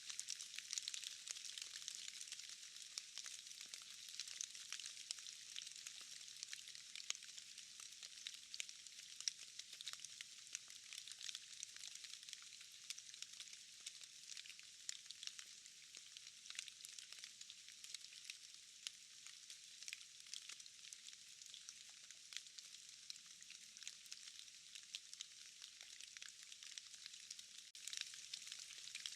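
Steady, faint rain in a forest, with raindrops dripping from trees onto moss: an even, crackly hiss with countless small ticks of single drops.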